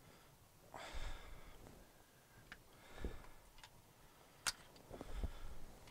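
Pliers gripping and working a bent pin in a tractor differential carrier: soft scrapes of hands and metal and small metallic clicks, with one sharp click about four and a half seconds in.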